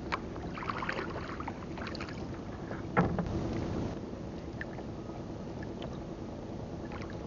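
Light clatter and ticks of longline hooks and line being handled against the boat's wooden gunwale, with one loud knock about three seconds in, over a steady low rumble of wind and water on the boat.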